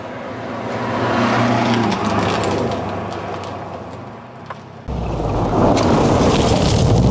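Subaru WRX's turbocharged flat-four engine pulls hard as the car approaches and passes on a gravel road, with tyres crunching and stones clicking, then fades away. About five seconds in, the sound jumps straight to the engine running loud and close again, with gravel spraying as the car slides through a turn.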